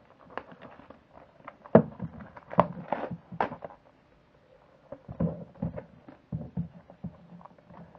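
A cardboard trading-card box and its wrapping being handled and opened by hand: irregular taps, knocks and rustles, the sharpest knock about two seconds in.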